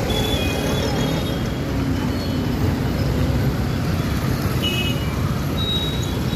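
Steady motor traffic: scooters, motorcycles and auto-rickshaws running past close by, with a few short high tones scattered through it.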